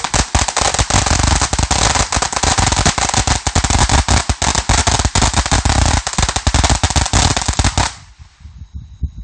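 Ground-level consumer firework going off in a dense, rapid string of sharp cracks and pops, loud and continuous, that stops abruptly about eight seconds in, leaving only a few scattered snaps.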